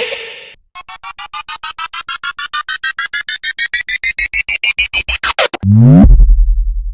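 Synthesized build-up sound effect: a fast train of short electronic notes that speed up, climb in pitch and grow louder for about five seconds, then a quick falling sweep into a deep, sustained bass hit. It opens on the fading tail of a noisy burst.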